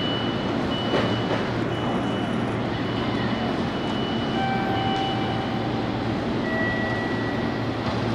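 Former JNR 113 series electric train at a station platform, with a steady hum and whirr of electrical equipment, several faint high steady tones that come and go, and a short click about a second in.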